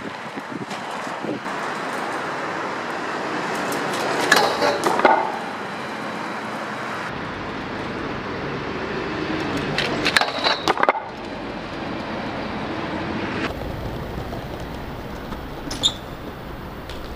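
BMX bike tyres rolling on pavement. The rolling noise swells and ends in a cluster of clattering knocks from a trick and landing, about four seconds in and again about ten seconds in. A single sharp click comes near the end.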